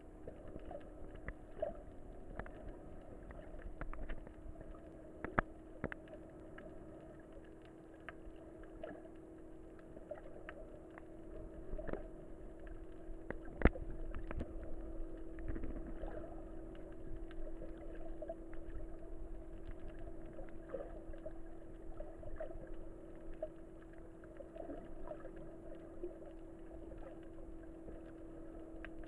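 Muffled underwater sound picked up through a camera's waterproof housing: a steady low hum with scattered clicks and taps, and a sharper knock about halfway through.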